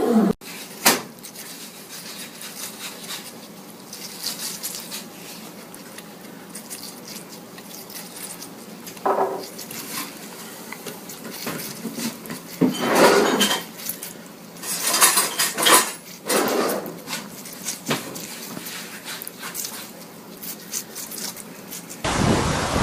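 Guinea pigs eating a slice of watermelon: irregular wet crunching and nibbling as they bite into the flesh, with louder spells of crunching in the middle.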